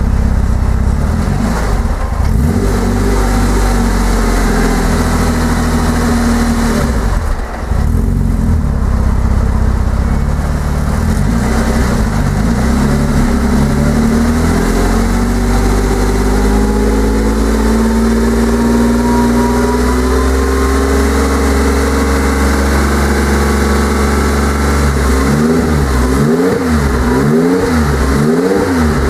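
Porsche Cayman's TPC-built 3.7-litre turbocharged flat-six running on its first start: it idles, then its revs climb and fall, and near the end it is blipped up and down about once a second.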